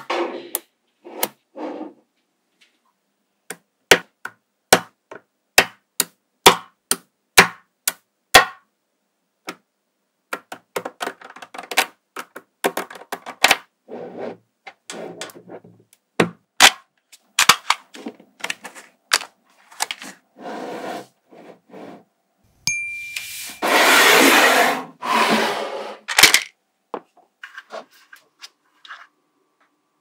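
Small magnetic balls clicking sharply as rows of them snap onto a magnet-ball cube, first as a run of single clicks, then as quicker clattering and rustling while the layers are pressed and slid into place. About two-thirds in comes the loudest sound, a rasping scrape lasting about three seconds.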